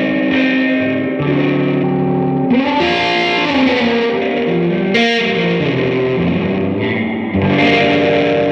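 1957 Gibson ES-225TD hollow-body electric guitar played through the Allston tube amp with its turbo boost on and the reverb all the way up. It produces overdriven, distorted chords that ring and wash together, with a few bent notes about three seconds in and fresh strums near five seconds and near the end.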